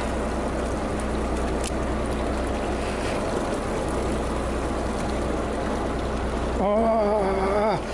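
Fishing boat's engine running steadily, with a constant low hum under a wash of water and wind noise. A man's voice sounds briefly near the end.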